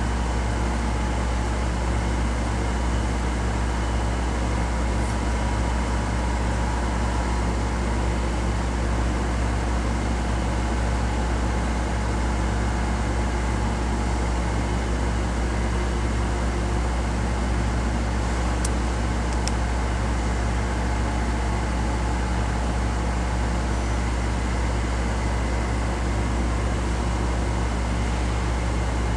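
Steady low machine hum with a few faint steady tones above it, unchanging throughout. Two faint short clicks come a little past the middle.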